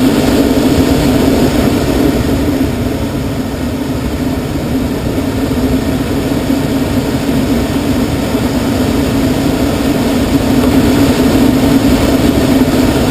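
Air rushing over an unpowered glider's cockpit in flight: a loud steady rush with a low hum in it, easing a little a few seconds in and building again near the end as the speed changes through the manoeuvre.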